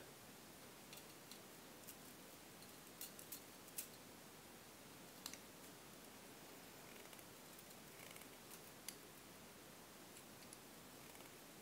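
Faint, scattered clicks of needle-nose pliers gripping and bending thin craft wire, over a quiet steady hiss; the sharpest click comes about four seconds in.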